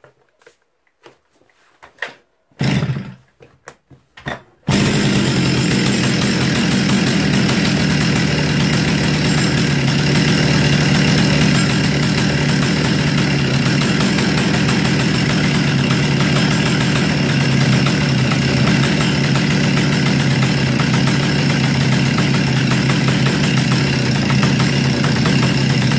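Stihl 034 AV Electronic two-stroke chainsaw being pull-started: a few short bursts of starter-cord pulls, then about five seconds in the engine catches and runs steadily at idle. The freshly reassembled saw is running well.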